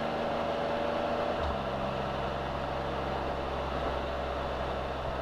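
Can-Am Spyder three-wheeled motorcycle riding at cruising speed: a steady engine hum under road and wind noise. The engine note changes about a second and a half in.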